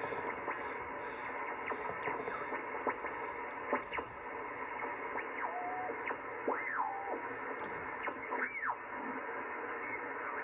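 Tempo One ham transceiver's speaker hissing with 80-meter band noise in its sideband receive passband, with no strong stations on. As the dial is tuned, whistling tones sweep up and down in pitch several times, the clearest about six and a half and eight and a half seconds in.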